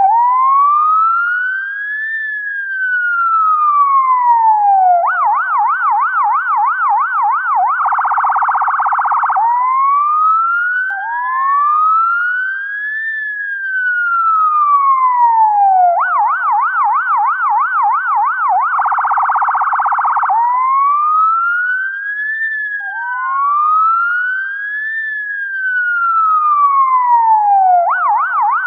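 UK ambulance electronic siren cycling through its tones: a slow rising and falling wail, then a rapid warbling yelp, then a brief harsh buzzing pulse. The cycle repeats about every eleven seconds, three times over.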